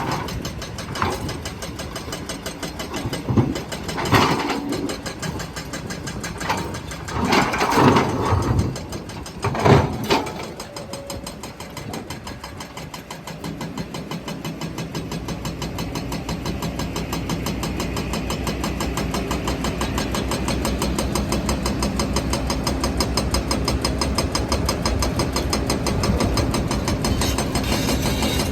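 Heavy construction diesel engine running, with several loud bangs and scrapes of big stones in the steel bucket or dump body during the first ten seconds. After that the engine runs on steadily and slowly grows louder.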